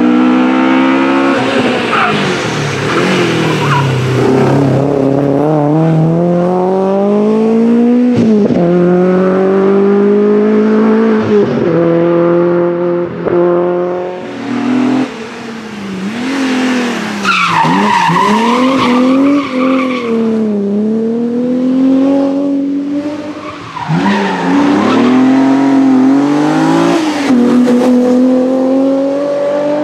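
BMW rally car engine revving hard, its pitch climbing and dropping repeatedly through gear changes and lifts off the throttle. Tyres squeal for a few seconds about two-thirds of the way through.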